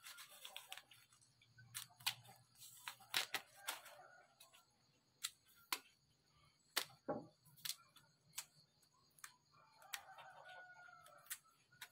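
Thick cassava peel being stripped from the root by hand: irregular sharp snaps and crackles as the rind breaks and tears away.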